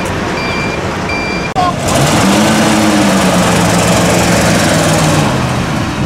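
A reversing alarm beeping about once every 0.7 s over vehicle noise, cut off about a second and a half in. Then a 1970s Ford F-100 pickup's engine revs up and holds a steady note as the truck pulls away.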